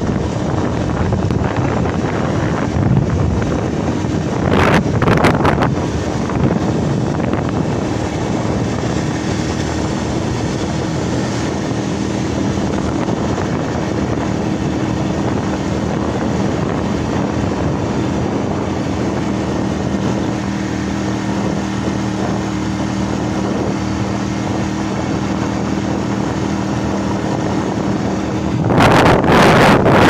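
Engine of a moving road vehicle running steadily with a low hum, with wind rushing over the microphone. The wind gusts louder about five seconds in and again near the end.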